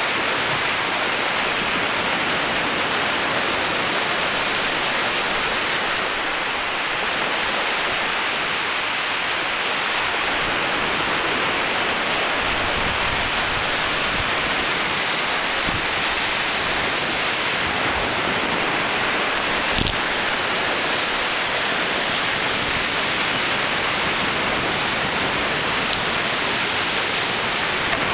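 Ocean surf washing onto a sandy beach, heard as a steady, even rush of noise.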